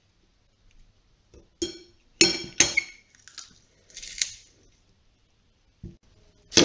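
Metal garlic press clinking sharply against the rim of a ceramic bowl about four times, each clink ringing briefly, as the pressed garlic is knocked off; a dull knock near the end.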